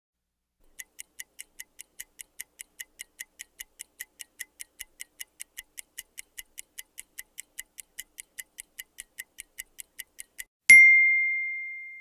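Mechanical microwave-oven dial timer ticking steadily, about five ticks a second. Near the end its bell dings once, loud, and rings out as it fades, signalling that the timer has run down.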